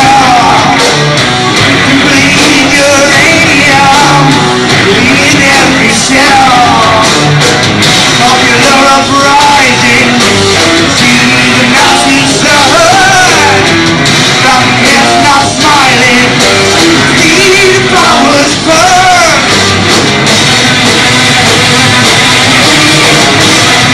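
Doom metal band playing live: distorted electric guitar, bass and drums, with a man singing over it.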